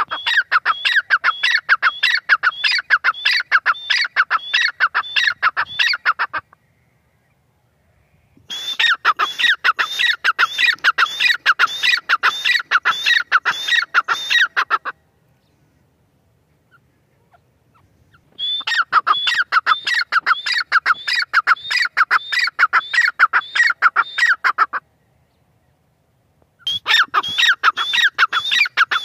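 Grey francolin (teetar) giving its loud territorial call: fast series of shrill, upward-sweeping notes in four bouts of about six seconds each, with short pauses between them.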